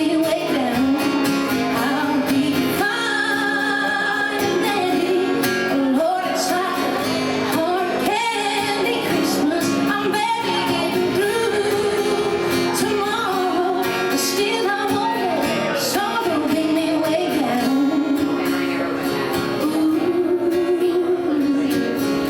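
A song: a sung melody over guitar accompaniment.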